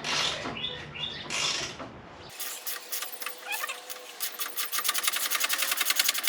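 Hand ratchet on a rusted fender bolt of a Range Rover Classic: a few slow strokes, then, about two seconds in, a fast run of ratchet clicks that quickens to several a second as the loosened fine-thread bolt is spun out.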